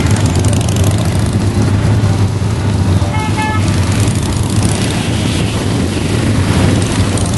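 Many motorcycle engines running together in a moving group ride, a steady low rumble. About three seconds in, a horn gives two short toots.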